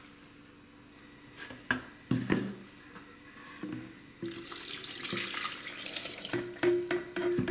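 Chile cooking water, with softened chiles and vegetable pieces, poured from a pot into a plastic blender jar: a steady splashing pour that starts about four seconds in, after a few knocks.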